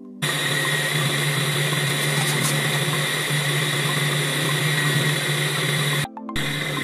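Electric mixer motor running steadily at a constant speed as it churns cream, with a steady hum and whine. It cuts out briefly near the end and comes straight back.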